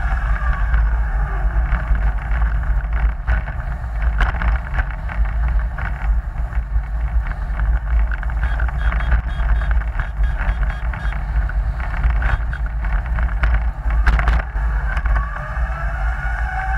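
Onboard an eco-marathon car coasting: steady road and tyre rumble with rattles and a few knocks from the track. The drive's whine dies away at the start and rises again near the end as power comes back on.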